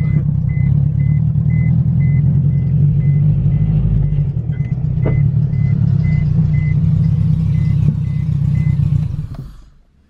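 Honda K-series four-cylinder engine swapped into an old Civic wagon, running steadily at low revs as the car creeps into the garage, heard from inside the cabin. A rapid steady warning beep sounds over it, and the engine sound stops near the end.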